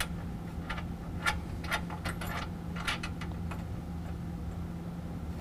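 Light metallic clicks, about one every half second, as a nut and washer are threaded by hand onto a bolt through a steel mounting bracket, over a steady low hum.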